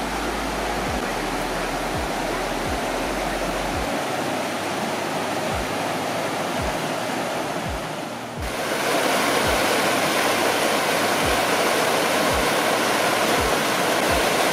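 Whitewater rapids of the Linville River rushing over rock in a steady roar of water, growing louder and brighter about eight seconds in.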